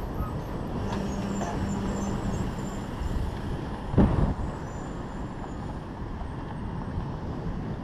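Wind rushing over the microphone of a bike-mounted camera while riding, with a dump truck's engine running just ahead and a steady hum for about two seconds early on. One sharp thump about four seconds in.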